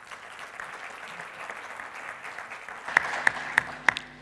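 Audience applauding: a steady patter of many hands clapping, which thins out about three seconds in to a few single louder claps.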